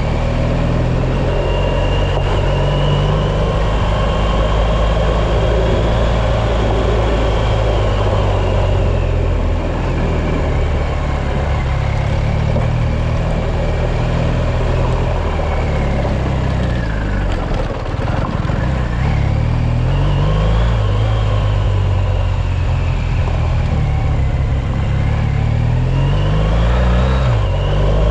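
An off-road vehicle's engine running as it drives along a dirt track. The engine note rises and falls with speed, with a higher whine following it. The engine eases off briefly about two-thirds of the way through, then climbs again.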